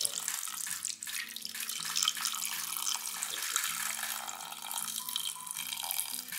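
A thin stream of water pouring steadily into a stainless steel pressure cooker, splashing onto a layer of raw peanuts as the pot fills.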